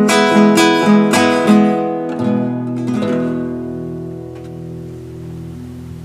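Acoustic guitar picking the closing phrase of the song, then a last chord about three seconds in that rings out and slowly fades away.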